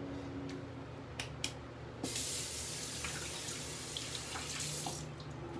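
Water running from a tap into a sink for about three seconds, starting about two seconds in and stopping abruptly, after a few light clicks.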